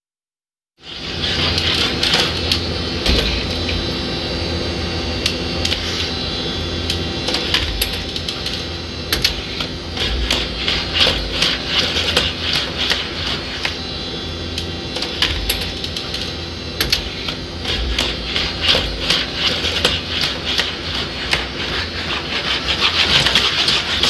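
Boston Dynamics SpotMini quadruped robots walking and working a door. Their electric joint motors whir steadily under a busy clatter of clicks and taps from feet and joints. The sound cuts in suddenly about a second in.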